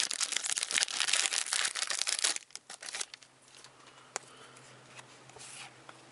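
Plastic wrapper of a hockey card pack being torn open and crinkled for about three seconds, then quieter rustling of the pack and cards with a single sharp tick about four seconds in.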